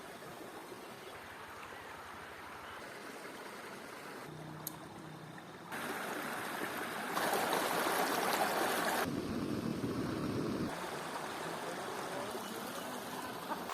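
River water running, a steady rushing noise that jumps louder about six and seven seconds in and drops back again after about nine and eleven seconds, with a single faint click a little before five seconds.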